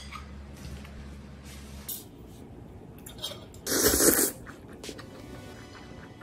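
A person slurping noodles: one short slurp about four seconds in, with a few faint clicks of chopsticks before it, over low room noise.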